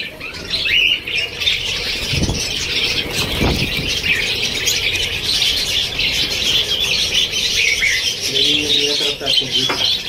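A flock of budgerigars chattering and warbling continuously in dense high chirps, with two brief low bumps about two and three and a half seconds in.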